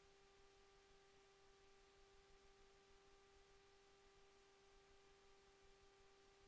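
Near silence, with a faint steady tone and fainter higher overtones that hold unchanged throughout.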